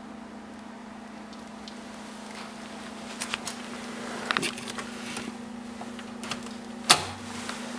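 Subaru Forester's hood release lever under the dash pulled: a few light clicks of handling, then one sharp clunk near the end as the hood latch lets go. A steady low hum runs underneath.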